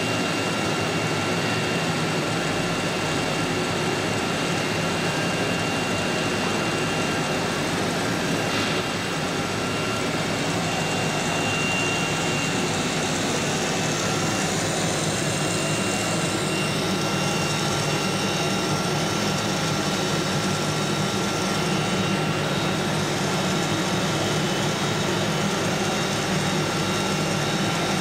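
Steady machine drone from a CNC router setup, with a thin high whine held throughout and a few faint gliding sounds about halfway through and near the end.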